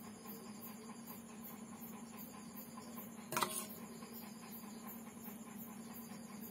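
Quiet room tone with a faint steady hum, broken once about halfway through by a short sharp noise with a brief ring.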